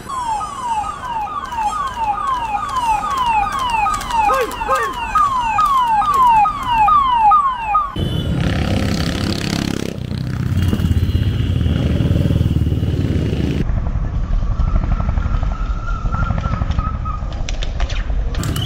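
A siren sounding in quick falling-pitch sweeps, about two a second, for roughly the first eight seconds. It then breaks off into the low rumble of motorcycle engines passing, mixed with street noise.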